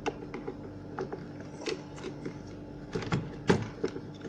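Irregular small clicks and knocks of the impact drill's rotor and housing parts being handled as the rotor is eased out of the drill body, with a few sharper knocks about three seconds in. A faint steady hum runs underneath.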